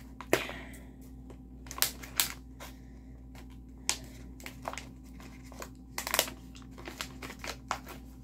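Diamond painting kit packaging being handled: plastic crinkling and rustling with irregular sharp clicks and taps, the loudest ones near the start and about two seconds in.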